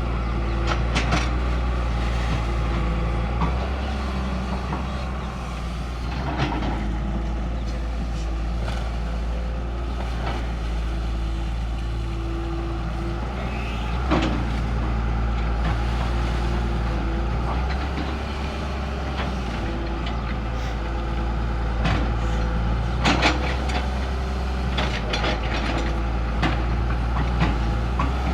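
Heavy diesel engines of earthmoving machines running steadily, with a handful of sharp metallic clanks and knocks scattered through.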